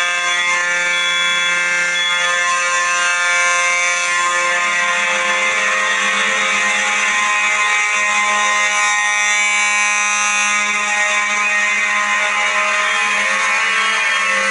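Many fire alarm horns sounding together in full alarm, a loud, steady, dissonant chord of several tones held without a break.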